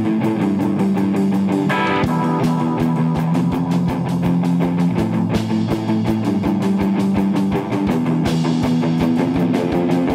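Rock band playing an instrumental passage: electric guitar chords over a steady drum-kit beat with cymbals.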